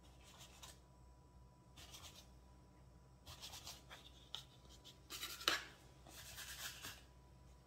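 Plastic bench scraper scraping across a floured stone countertop as it cuts through ciabatta dough, in about five short strokes, with a sharp knock about five and a half seconds in.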